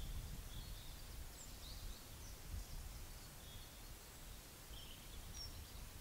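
Faint outdoor ambience: birds giving scattered short, high chirps over a low rumble that fades away.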